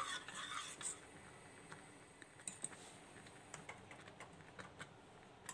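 Faint, irregular light clicks of a metal spoon against a small stainless-steel pot as a thin rice-flour mixture is stirred.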